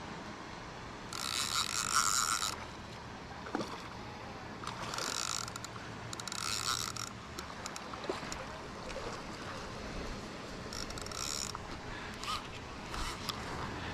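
Fly reel's click-pawl ratchet buzzing in four short bursts as line runs off or is wound back while a hooked striped bass is played. The first burst, about a second in, is the longest.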